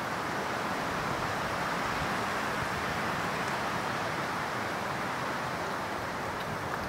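Wind blowing through pine trees: a steady rushing hiss that holds at a constant level.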